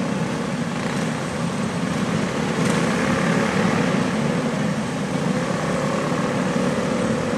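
A pack of quarter midget race cars' small single-cylinder engines running together in a steady, massed drone as the cars roll slowly in formation. It grows a little louder a few seconds in.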